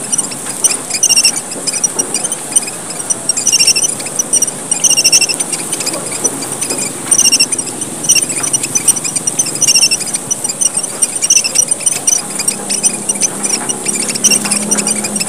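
A group of small red finches (emprit merah papua) calling busily in the excited 'gocar' style used as a lure: clusters of short, high, thin chirps repeated about once a second over a steady high trill.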